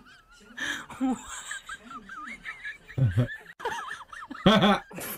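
People laughing: two loud bursts of laughter about three and four and a half seconds in, over fainter high, wavering voice sounds.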